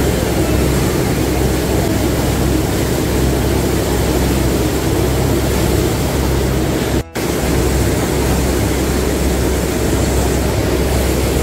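Steady drone of a boat's engine under a constant rush of wind and water noise, cutting out for an instant about seven seconds in.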